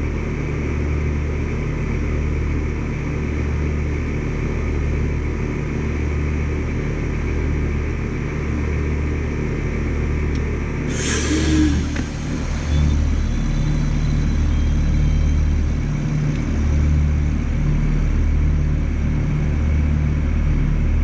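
Carrier Comfort heat pump outdoor units running: a steady low hum with a slow pulsing beat. A short burst of hiss comes about eleven seconds in.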